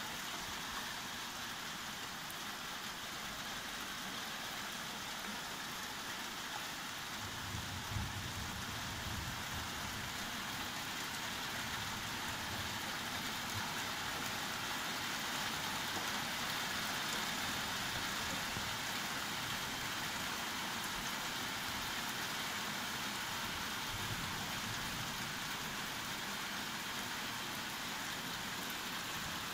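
Steady rain falling on a window during a thunderstorm, with a brief low rumble of thunder about eight seconds in.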